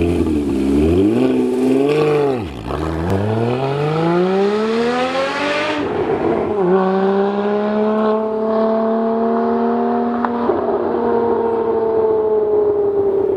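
Porsche GT4's 3.8-litre flat-six through a valved exhaust with catted sport headers, valves open, accelerating hard away. The revs climb, dip briefly about two and a half seconds in, and climb again to a sharp upshift near six seconds. After that the note runs steadier and duller as the car draws off into the distance.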